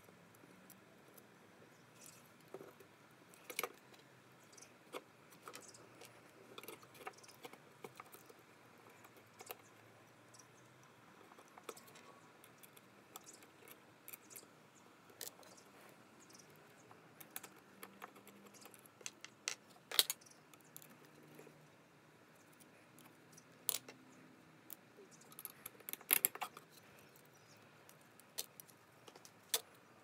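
Small brass and steel parts clicking and clinking as a latch is fitted together by hand with screws, nuts and washers: scattered light taps and ticks, with a few sharper clicks, the sharpest about two-thirds of the way through.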